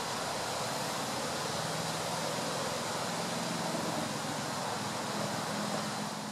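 Steady outdoor background noise: an even hiss with a faint low hum underneath, and no distinct events.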